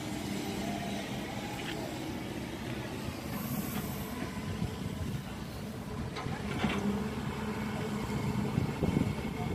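Steady rumble of wind and choppy sea, with a faint low hum under it.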